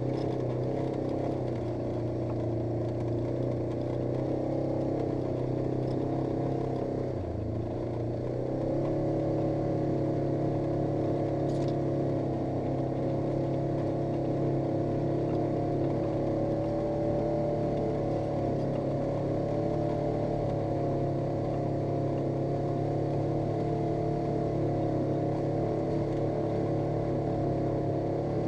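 Polaris RZR 900 S side-by-side's 875 cc twin-cylinder engine running steadily under way. About seven seconds in it eases off briefly, then pulls again at a slightly higher, steady pitch.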